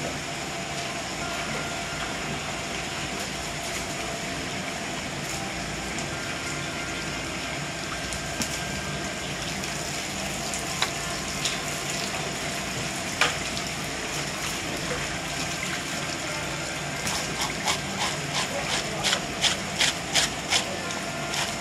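Steady rushing background noise, with wet clicks and squelches as hands pull the innards out of the opened belly of a large Japanese Spanish mackerel (sawara). A few single clicks come midway, then a quick run of them, about two or three a second, near the end.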